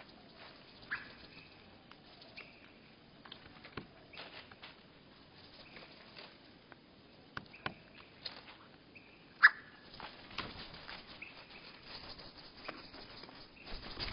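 Small birds at a seed feeder, slowed to a third of normal speed: scattered sharp clicks and taps from beaks and feet on the feeder, with short chirps that sound lowered and drawn out. The loudest tap comes about two-thirds of the way through.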